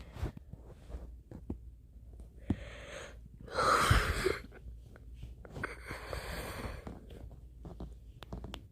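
A person breathing close to the microphone: three audible breaths, the loudest about four seconds in, with faint clicks between.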